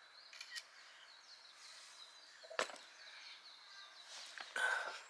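Faint handling sounds at a table: a couple of light clicks, one sharp knock about halfway through, and a brief rustle near the end, with faint birdsong in the background.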